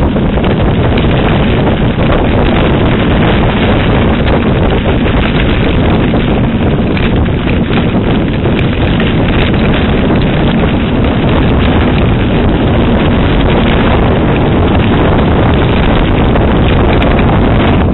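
Loud, steady wind rush buffeting the microphone of a camera carried on a mountain bike at speed along a trail, broken by frequent small knocks.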